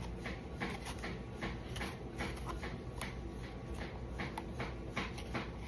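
A hand carving tool making short scratchy scoring strokes into melon rind, about three a second, as small decorative marks are cut.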